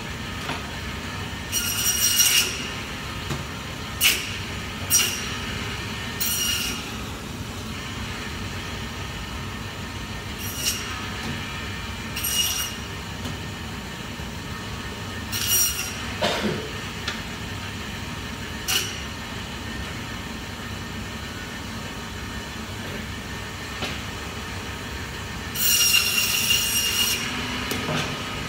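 Omega Foodtech meat band saw running with a steady hum, screeching briefly each time the blade cuts through lamb bone. About ten short cuts come one to a few seconds apart, with a longer cut lasting about two seconds near the end.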